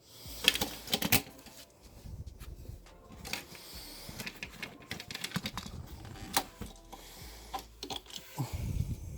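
Small hard objects being handled, with irregular clicks, taps and light clattering: die-cast toy cars and parts being picked out of an opened speaker cabinet.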